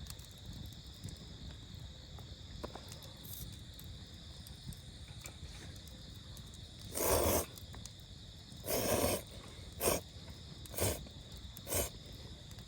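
Insects chirping steadily in a high, continuous drone, with a few louder short rustling noises from about halfway in.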